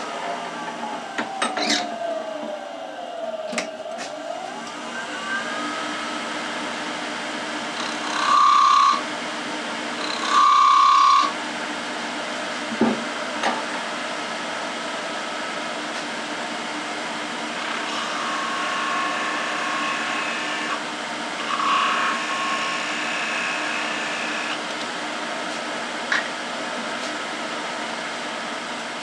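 Wood lathe running while a turning tool cuts a small softwood spindle, scraping and rubbing against the spinning wood. A whine slides in pitch in the first few seconds, and two short, loud, high squeals come about eight and ten seconds in, with fainter ones later.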